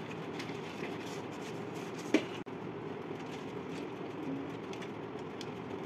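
Steady background hum with faint, irregular light taps of a felt-tip marker dotting paper, and one sharp click about two seconds in.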